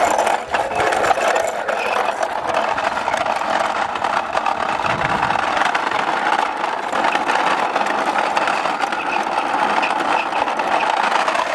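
Plastic toy van's wheels rolling and grinding over rough concrete as it is pushed along, a steady rattling scrape.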